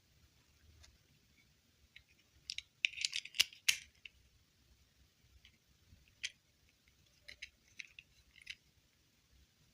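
Close, small-object handling: a quick cluster of crisp clicks and rustles about three seconds in, then a few scattered single clicks.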